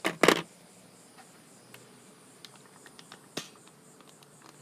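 Two sharp clicks in quick succession, followed by a few faint scattered ticks over a faint, steady insect hum.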